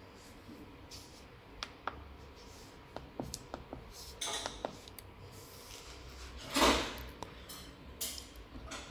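Gloved fingers pressing the membrane keys of a Siemens SIMATIC C7 operator panel: a scattered series of small clicks and taps, with a louder, longer scuff of handling about six and a half seconds in.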